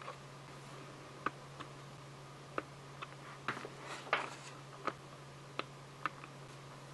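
Plastic LEGO bricks clicking as they are handled and pressed onto a baseplate: scattered single sharp clicks about a second apart, over a faint low steady hum.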